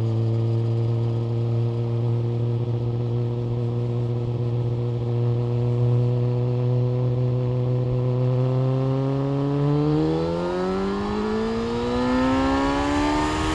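Yamaha FZ1 Fazer's inline-four engine through an SC-Project exhaust, running at steady revs, then revving up with its pitch climbing over the last few seconds.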